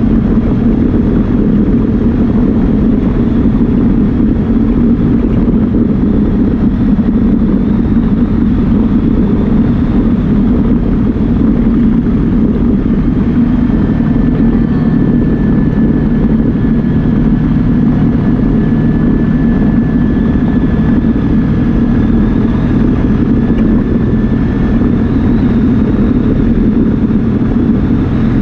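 Yamaha Viking side-by-side's single-cylinder engine and drivetrain running steadily while driving, a loud low drone. A faint high whine joins it for about ten seconds partway through.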